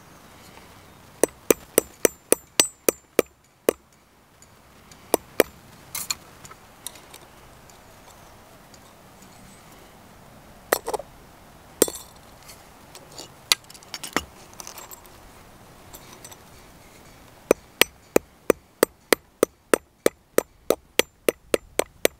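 Small hammer cold-forging a copper pin held in pliers on a small steel anvil: runs of quick, sharp metallic taps, about four a second, with short ringing after each and scattered single taps between the runs.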